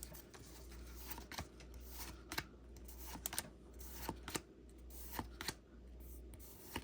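Pokémon trading cards being flipped through one at a time: faint, short clicks and slides of card against card, about a dozen scattered through, over a steady low hum.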